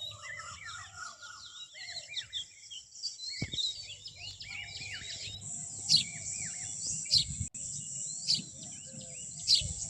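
Several birds chirping and singing, with many short twittering calls. In the second half one bird repeats a loud, sharp, high call that drops in pitch, about once a second, over a steady high hiss.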